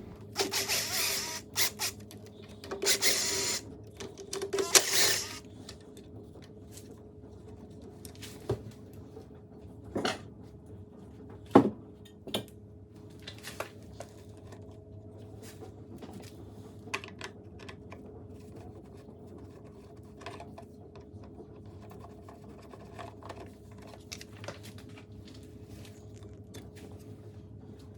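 Hands working on a lawnmower engine, taking off parts. A few seconds of loud scraping and rustling come first, then scattered clicks and knocks of tools and parts being handled.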